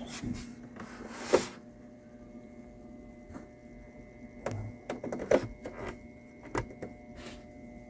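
Scattered light knocks and brief rubbing noises from a koa lap dulcimer being handled and turned over, the loudest knock about a second in, with a faint steady hum underneath.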